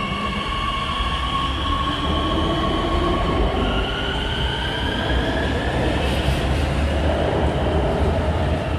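Beijing Subway Line 14 train moving through the station, its traction motors whining in tones that rise as it gathers speed, over a steady low rumble of wheels on the rails.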